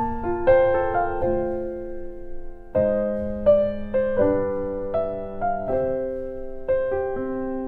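Background piano music: gentle chords and single notes struck and left to ring.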